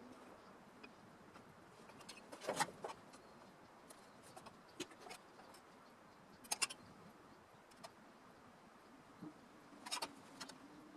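Three brief clusters of sharp clicks and taps, about two and a half, six and a half and ten seconds in, with a few lighter ticks between them over a faint background.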